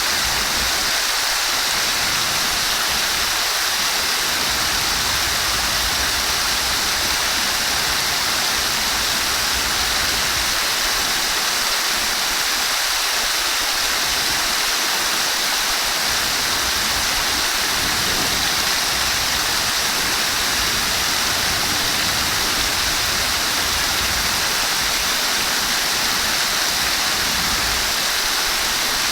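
Flowing water running steadily, a continuous even rushing hiss with no breaks or changes.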